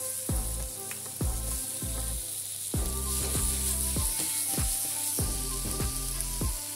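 Sliced zucchini, bell peppers and onion sizzling in a frying pan as a spatula stirs through them, under background music with a regular beat.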